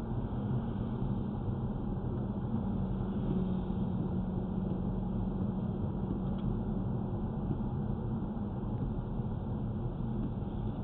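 Volvo car running with a steady rumble and a low hum, recorded by its owner as a knocking noise from the car.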